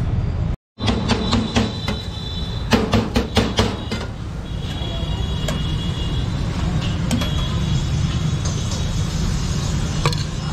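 Metal knife and fork clicking and scraping against a steel counter as roast chicken is carved off a vertical spit. A quick run of sharp clicks comes in the first few seconds and lighter ticks follow. A steady low rumble sits under it all.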